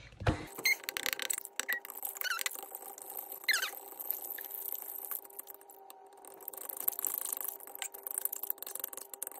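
A metal fork stirring chicken broth in the stainless steel inner pot of an Instant Pot, scraping and clicking against the bottom and sides, with a few short high squeaks. A faint steady hum runs underneath.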